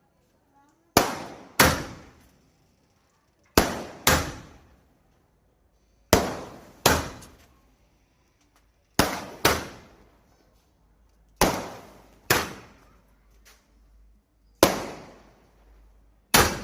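A 30-shot fireworks cake firing: sharp bangs in pairs, a pair every two to three seconds, each bang trailing off in a short echo.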